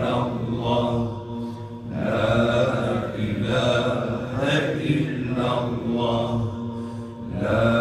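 A man's voice chanting an Islamic hymn in long held, melismatic phrases, the pitch wavering and ornamented on each sustained note.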